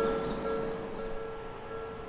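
Japanese railway crossing warning bell ringing, a steady ding repeating about twice a second. A low rumble underneath dies away about half a second in.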